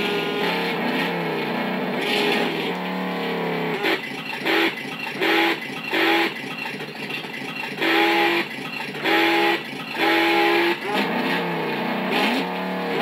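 Electronic engine sound effects from the Mattel Ultimate Batmobile's speaker: a revving engine rising and falling, then six short electronic revs a second or so apart, each holding one pitch, the last three longer.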